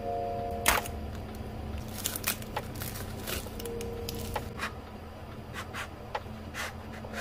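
Clear cellophane wrapper crinkling and crackling in irregular sharp bursts as it is peeled off a small paper box of tags.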